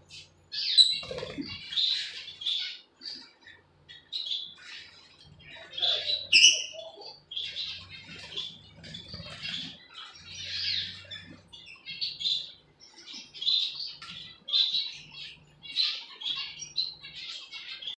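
Lovebirds, including a peach-faced lovebird, chirping over and over in short high calls, with a sharper, louder call about six and a half seconds in.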